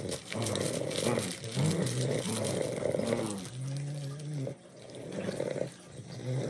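Dogs growling in play during a tug-of-war over a plush toy, in a string of low, rough growls with a longer held growl about halfway through.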